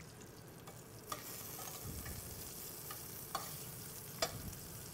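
Already-cooked potatoes sizzling as they brown in a stainless-steel sauté pan, turned with metal tongs that click sharply against the pan three times. The sizzle grows louder about a second in.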